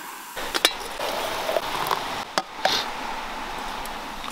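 Blue enamel camp coffee pot of cowboy coffee being handled: several sharp clinks of enamelware over a steady hiss.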